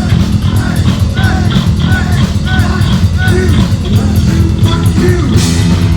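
Heavy metal band playing live and loud: distorted electric guitar with a run of repeated bent notes over heavy bass and drums. A cymbal crash comes near the end.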